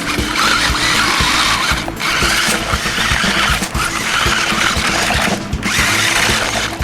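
Toy-class RC truck-tank's electric drive motors whining and its front tank treads churning over rough ground, cutting out briefly about three times as the throttle is let off and reapplied.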